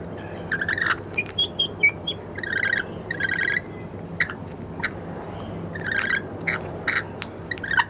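Rainbow lorikeets chattering while feeding: short chirping calls in quick clusters, with sharp clicks between them.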